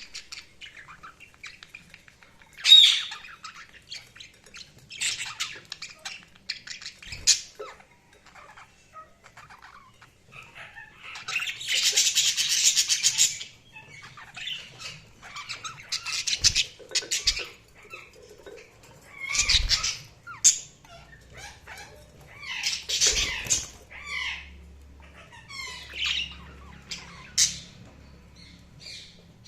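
Budgerigars chirping and chattering in short bursts of high, quickly changing calls, with a longer run of rapid chatter about eleven seconds in. A few soft low thumps are scattered through.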